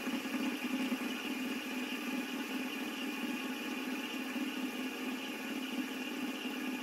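A three-armed fidget spinner with brass weights whirring steadily on its ball bearing as it spins freely at about 400 revolutions a minute, slowly losing speed.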